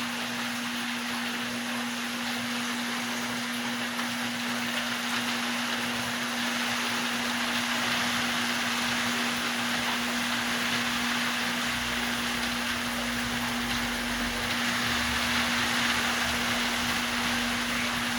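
Running water in a guppy aquarium: a steady splashing hiss with a constant hum underneath.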